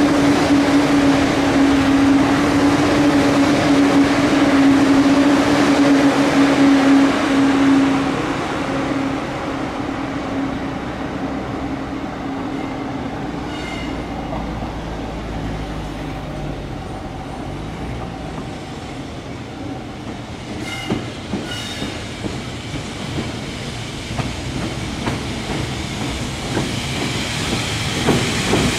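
JR Freight EF210 electric locomotive moving through the yard: a steady tone over running and wheel noise, loud for the first eight seconds or so and then fading as it moves away. Wheels click over the points, with brief high squeals a few times.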